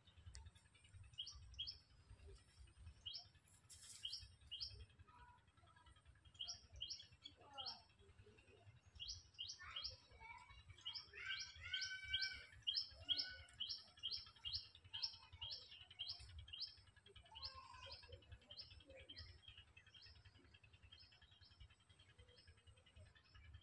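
Small birds chirping: runs of short, high chirps, sparse at first, then a quick series of about three a second through the middle, thinning out near the end, with a few lower calls mixed in.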